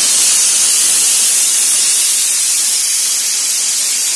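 Aluminium pressure cooker on a gas stove, jetting steam from its weighted vent in a loud, steady hiss: the cooker is up to pressure and venting.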